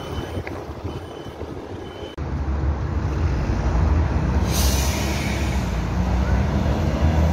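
Busy city street traffic noise. About two seconds in it turns abruptly louder with a deep steady rumble, and a short sharp hiss comes at about four and a half seconds.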